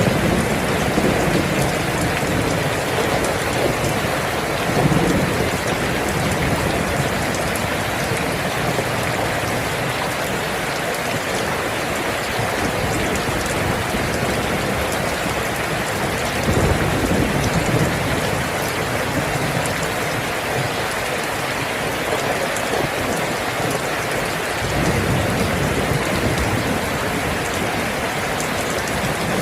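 Steady heavy rain falling, with low rolls of thunder rumbling up three times: about five seconds in, near the middle, and near the end.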